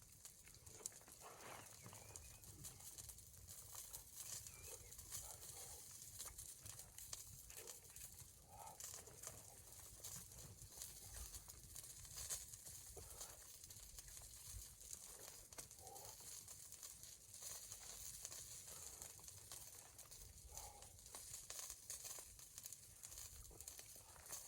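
Near silence: a steady faint hiss with scattered soft rustles and ticks.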